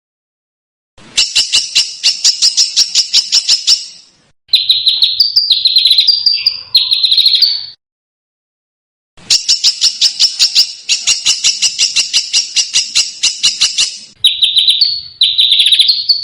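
Small songbird's competition-style song, played from a recording: a rapid run of sharp, high chipping notes, then harsh, rasping buzzy phrases. After a short silent gap the same sequence repeats, as in a looped tutor track.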